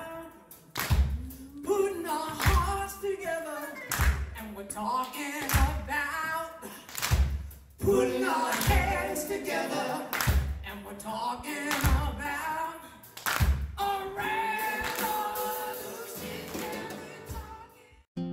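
Live band playing a song: singing into a microphone over acoustic guitars and drums, with a heavy hit on the beat about every one and a half seconds. It cuts off just before the end.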